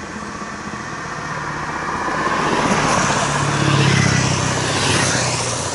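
A car driving past close by on the road: engine and tyre noise swell to a peak about four seconds in and then fade as it moves away.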